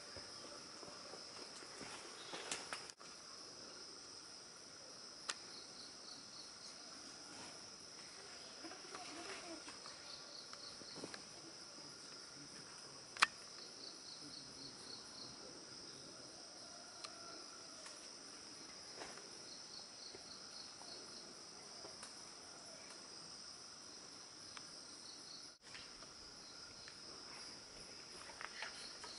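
Faint, steady high-pitched drone of forest insects, with rows of short repeated chirps over it. A few small sharp clicks break in, the loudest about thirteen seconds in, and the sound drops out for an instant twice.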